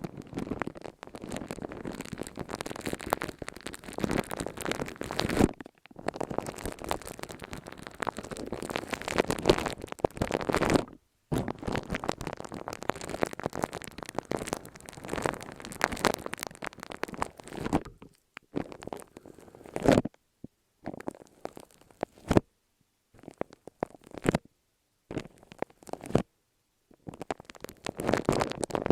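Close-miked ASMR handling sounds, crackly and rustling, in long stretches with brief gaps that break into shorter, sparser bursts with silences in the second half.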